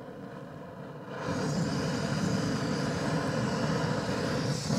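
MSR Pocket Rocket 2 canister gas stove flaring up about a second in, then burning at high flame with a loud, steady rushing noise.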